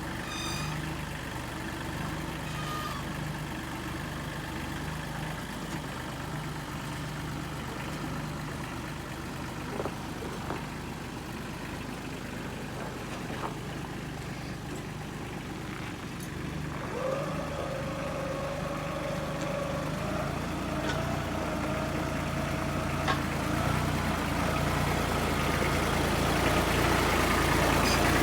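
A heavy engine running steadily. About two-thirds of the way through a whine sets in and rises in pitch, and the engine grows louder toward the end as it picks up speed, as when machinery is worked to move heavy logs.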